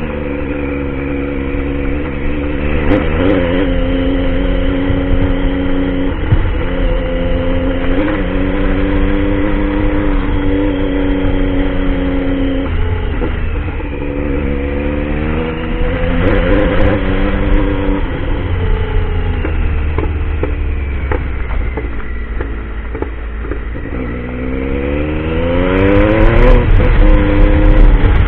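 Motorcycle engine running under way, its pitch climbing as it revs and then dropping back several times, as at gear changes or easing off the throttle, over a steady wind rumble on the microphone. Near the end it revs up hardest and loudest.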